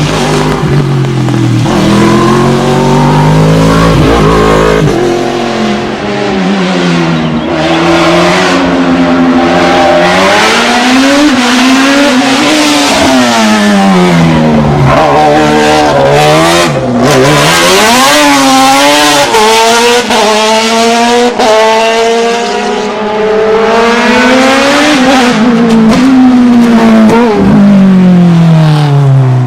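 Racing car engine under hard use, its pitch climbing and dropping again and again as it accelerates and brakes through a slalom course.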